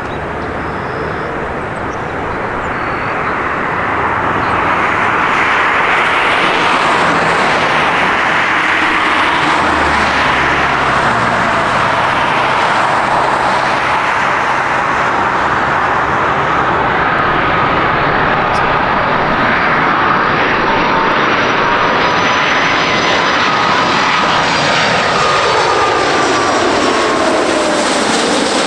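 Airbus A330-200 jet airliner on final approach, its twin jet engines a loud steady rumble that swells over the first few seconds. In the second half a whine of thin tones joins the roar and slides down in pitch near the end as the plane passes close by.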